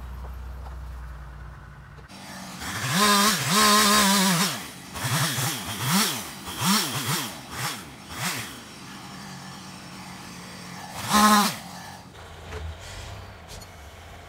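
An engine revved hard in bursts. There is a long high rev a couple of seconds in, then a string of quick throttle blips, each rising and falling, and one more sharp rev near the end. A low engine rumble runs underneath.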